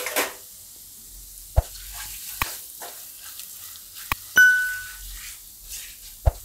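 Spices frying in hot oil in a nonstick kadai, stirred with a silicone spatula: a steady sizzle with several sharp knocks of the spatula against the pan. A little over four seconds in, a short bell-like electronic ding, the loudest sound, rings out.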